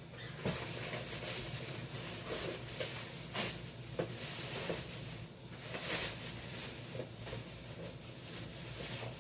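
Thin plastic trash bag rustling and crinkling as it is handled, with scattered soft crackles.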